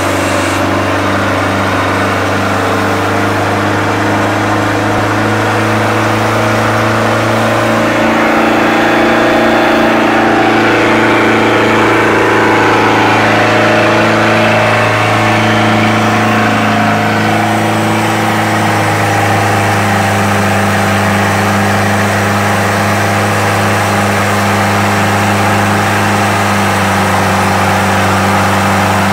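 MerCruiser 3.7 L 470 four-cylinder marine engine running steadily on a dynamometer under full load, smooth, with no knocks or strange noises. It grows slightly louder about eight seconds in.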